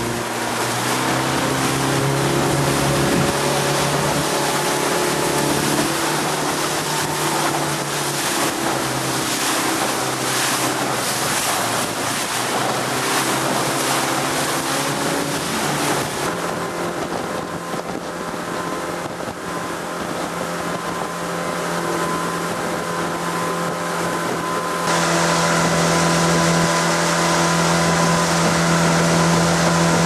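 Speedboat's outboard motor running at speed with a steady drone, over the loud rush of water spray and wind. The engine note and the hiss change abruptly twice, about halfway through and again near the end.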